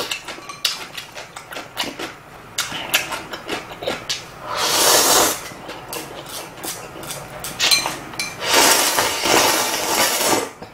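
A person slurping instant ramen noodles, then slurping broth from a bowl: two long slurps, about four and nine seconds in, with chewing and small clinks of chopsticks and bowl in between.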